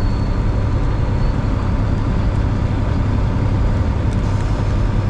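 Steady low drone inside the cab of a 1999 semi-truck at highway speed: the diesel engine running under road and wind noise.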